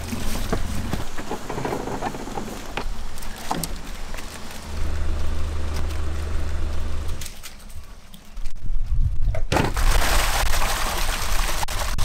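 A low engine hum that cuts out about a second in and comes back for a couple of seconds midway, over a rushing noise that swells louder near the end.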